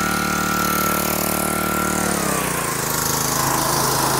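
Pressure washer running steadily under a hiss; about two seconds in its pitch drops and it carries on at the lower pitch.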